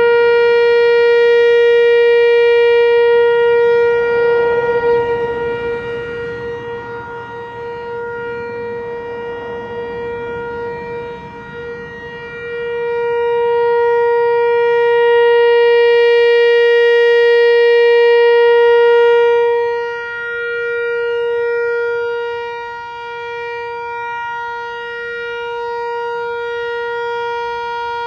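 Whelen WPS-4004 electronic outdoor warning siren sounding a steady, unchanging tone, the Alert signal. Its loudness fades for several seconds, swells back up about halfway through, then drops again as the speaker array turns toward and away from the listener.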